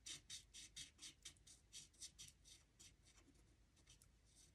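Faint, rapid strokes of a Stampin' Blends alcohol marker scratching across vellum as petals are coloured in, about five strokes a second, thinning out near the end.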